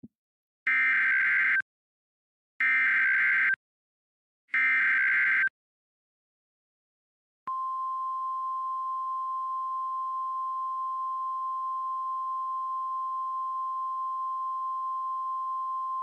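Emergency Alert System header: three one-second bursts of shrill data tones about a second apart, a short pause, then a long, steady single-pitched attention tone that marks the start of an emergency broadcast.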